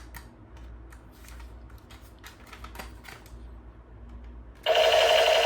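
Plastic clicks and rattles of a battery-powered toy gun being handled. Then, near the end, its electronic sound effect comes on suddenly: a loud, steady electronic tone.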